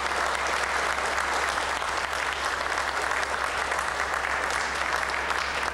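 An audience applauding steadily, dying away right at the end.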